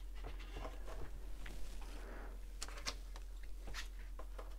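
Faint handling noise of paper sheets and a clear plastic packaging box being picked up and moved: soft rustling with a few separate small clicks.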